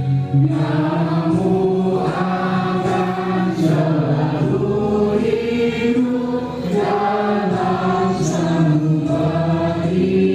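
A choir of junior high school students singing together in long held notes that change pitch every second or two.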